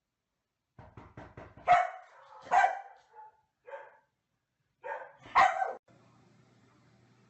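A dog barking several times in short, sharp barks. The loudest come about two seconds in and again near five seconds. A quick run of short clicks comes just before the first bark.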